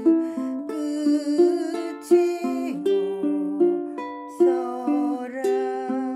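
Ukulele played fingerstyle as an arpeggio: single plucked notes ring over one another in a steady rhythm, with a sharp attack on each note.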